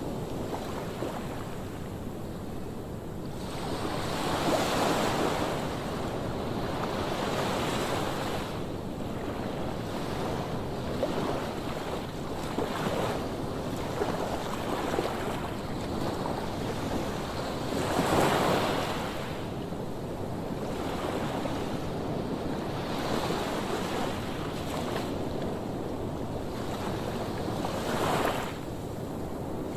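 Waves breaking and washing in every few seconds, under a steady wash of wind noise.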